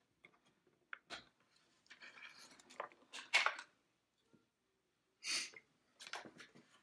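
Scattered handling noises on a workbench: light clicks and rustles, with a few short, louder bursts of noise, as printer wires are handled and a digital multimeter is picked up.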